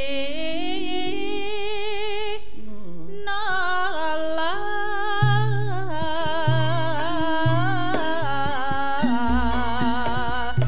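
A Javanese sindhen sings a melismatic line with wide vibrato and slow pitch glides. About halfway in, the gamelan joins with regular low metallic strokes from the gendèr and other bronze keyed instruments. A deep gong stroke sounds near the end.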